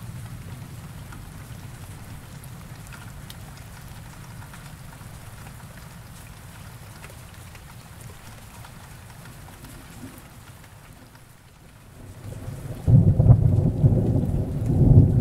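Steady rainfall on tree leaves and foliage, with a low rumble of thunder dying away early on. About thirteen seconds in, a loud roll of thunder breaks in and rumbles on.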